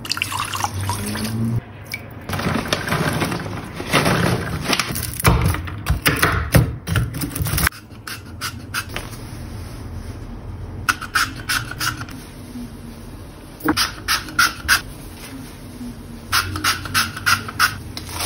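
Water poured into a metal pot over sugar to make syrup, with knocks and scraping. Then soft crinkling and taps as thin phyllo dough sheets are handled and laid into a glass baking dish.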